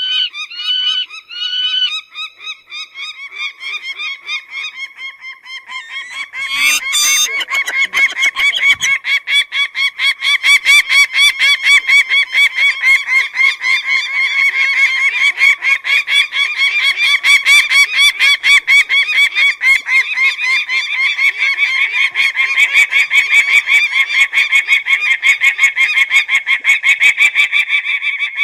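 Peregrine (shaheen) falcon calling: a few spaced calls early on, then from about seven seconds in a fast, unbroken string of repeated calls, several a second.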